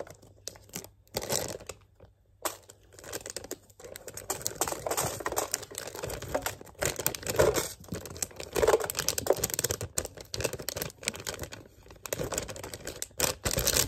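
Plastic Haribo Goldbears candy bag crinkling as it is handled and tipped, on and off with short pauses in the first few seconds, then almost continuous.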